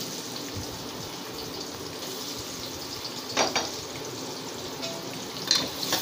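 Oil and ghee with whole spices sizzling steadily in an aluminium pressure cooker, with a couple of brief clatters around the middle and near the end. The sizzle grows louder near the end as chopped onions are added to the hot oil.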